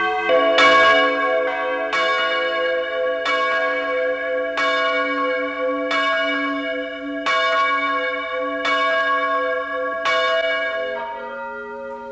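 A newly hung English change-ringing church bell being rung full-circle on its rope in the tower, tried out for the first time after installation. It strikes about once every 1.3 seconds, each stroke ringing on into the next; near the end the pitch changes as a different bell takes over.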